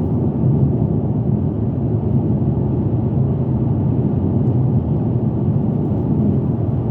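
Steady vehicle noise inside a Mercedes-Benz car's cabin on the move: an even, low rumble of engine and road.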